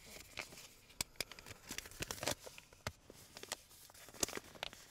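Small handling noises inside a car: irregular light clicks and taps with soft rustling, as of hands fiddling with small objects in the driver's seat.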